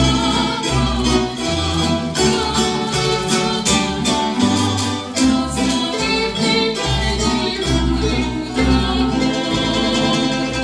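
A tamburica ensemble plays a Croatian folk song live: a fast-plucked tremolo melody on the small tamburicas over a steady bass line.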